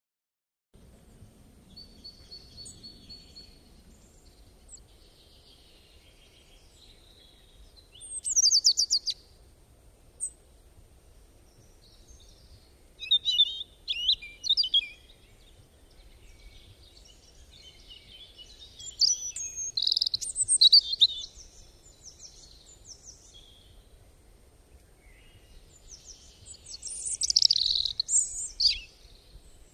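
Several songbirds singing and chirping in short phrases, with louder bouts of rapid chirps about a quarter, half and two-thirds of the way through and again near the end, over a faint low background hum.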